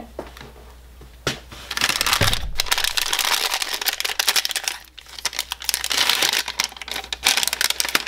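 Thin plastic parts bag crinkling as hands work a pedal pad out of it. The crinkling starts about a second in, with a short lull midway.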